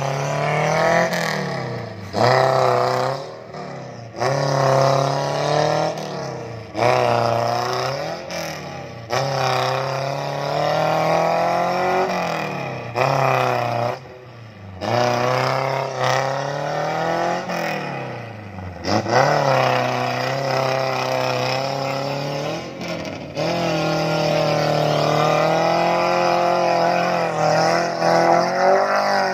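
Small four-wheel-drive jeep's engine revved hard over and over, its pitch rising and falling every second or two, with a longer held high rev near the end, as it struggles to climb a muddy riverbank out of the water.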